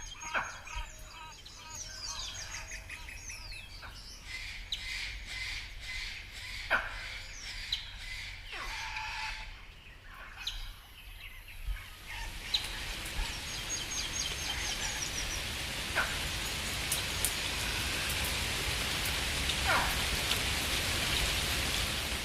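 Wild birds calling, with chirps and short falling whistles. About ten seconds in, the birdsong gives way to a steady hiss, with a few scattered calls over it.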